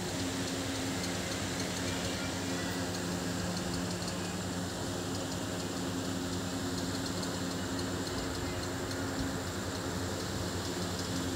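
Steady low mechanical hum over a constant background hiss, with no change in level.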